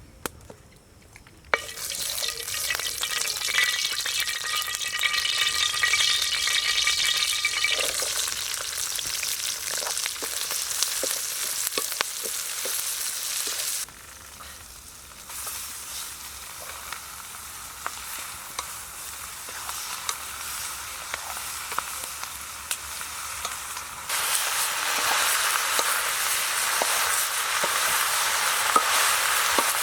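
Food sizzling as it fries in a pan, with stirring and small clicks. The sizzle starts about a second and a half in, drops back about halfway through and comes up again near the end.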